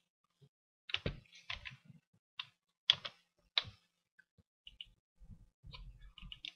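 Computer keyboard keystrokes and mouse clicks: five sharp clicks in the first four seconds, then softer clicks and a few dull low knocks near the end.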